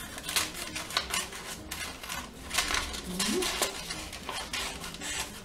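Scissors cutting through envelope paper: an irregular run of crisp snips, two or three a second.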